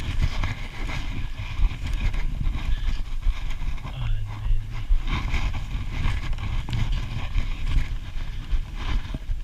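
Wind buffeting the action-camera microphone as a low rumble, over the repeated swish and crunch of climbing skins sliding and poles planting in the snow of a skin track.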